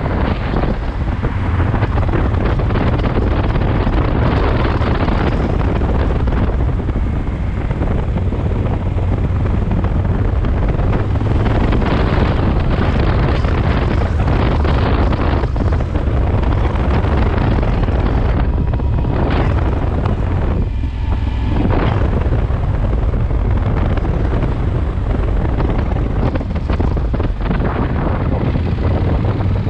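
Wind rushing over the microphone on a moving Yamaha Super Ténéré 1200, with the motorcycle's parallel-twin engine running beneath it. The wind eases briefly twice about two-thirds of the way through.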